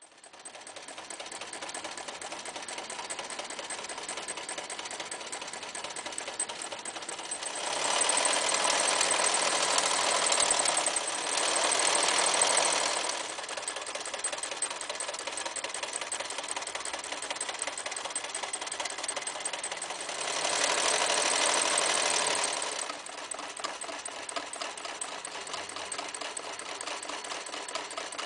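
Toyota 5001 electric sewing machine starting up and stitching through four layers of denim, a fast even clatter of the needle mechanism. It gets louder for a few seconds about a third of the way in and again past the middle.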